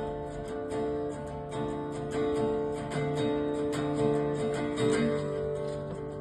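Acoustic guitar strummed in a steady rhythm, its chords ringing on without singing.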